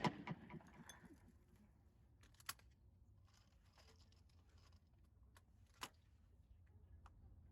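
Near silence, broken only by two faint, short clicks, one about two and a half seconds in and one near six seconds.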